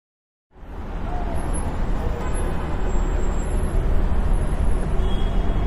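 Steady road-traffic noise with a deep rumble, fading in about half a second in.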